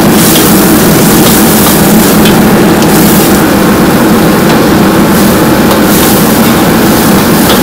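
Commercial gas wok burner running at full flame with a loud, steady roar, over the sizzle and bubbling of broth in the hot wok, with a few light clinks of a metal ladle.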